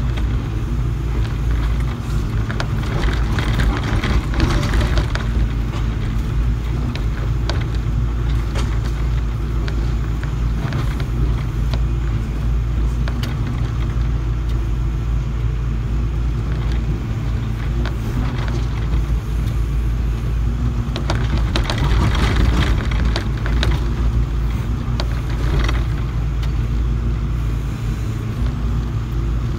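SDLG hydraulic excavator's diesel engine running steadily while the bucket digs, with scattered clicks and scrapes, bunched a couple of seconds in and again about two-thirds of the way through.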